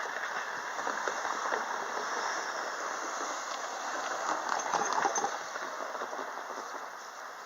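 A train running through a railway level crossing, its wheels clattering over the rails in a steady run of knocks, loudest a little past the middle before it eases off.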